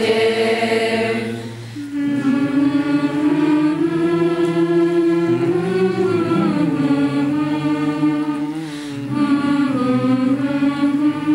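Youth choir singing a Romanian Christmas carol (colind) in long, drawn-out held notes. The sound dips briefly and a new sustained note starts about two seconds in.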